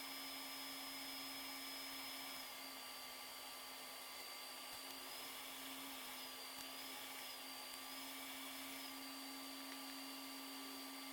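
Faint, steady high-pitched whine of a small high-speed motor, its pitch dipping slightly about a quarter of the way in and wavering up and down a few times later, over a low steady hum.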